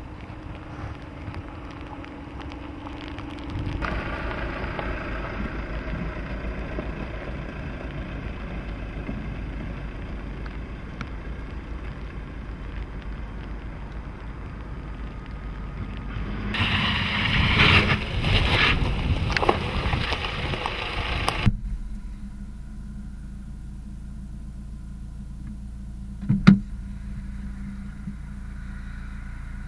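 Jeep Renegade Trailhawk's 2.0 Multijet four-cylinder turbodiesel running as it crawls over an off-road course, louder and rougher for about five seconds late on. It then switches suddenly to the engine idling steadily, heard from inside the cabin, with one sharp click near the end.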